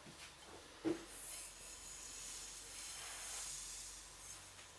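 Granulated sugar pouring from a bowl onto a heap of sugar and strawberries in a stainless-steel pot: a light tap about a second in, then a faint steady hiss for about three seconds.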